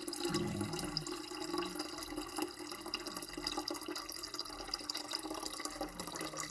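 Filtered water pouring into a humidifier's plastic water tank: a steady splashing trickle as the tank nears full.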